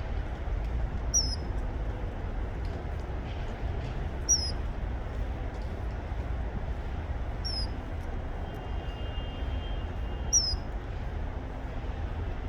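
Common kingfisher calling: four short, high, downward-sliding whistles about three seconds apart, over a steady low rumble.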